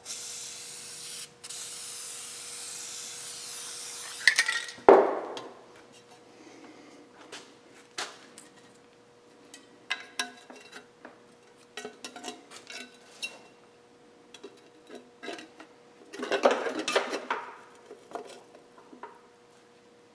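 Aerosol spray can hissing steadily for about four seconds, with a short break about a second in, as the new wheel bearing hub is sprayed. A metal clank follows at about five seconds, then scattered clinks and a burst of clatter as the hub and a rusty steel dust shield are handled.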